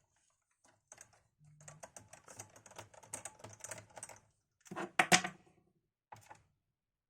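Small plastic and metal clicks and taps from hands working on a Sony Vaio laptop to free its DVD drive: a run of rapid small clicks, then a louder clack about five seconds in and one more click near the end.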